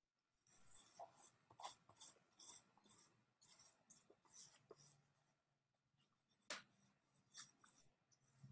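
A drawing stick scratching and rubbing across paper in quick, faint back-and-forth shading strokes, about two a second. The strokes ease off after about five seconds, then come one sharp stroke and a few more near the end.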